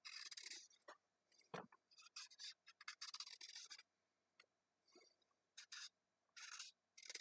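Paring knife shaving peel off a raw carrot: faint, short scraping strokes, several in a row with brief pauses between them.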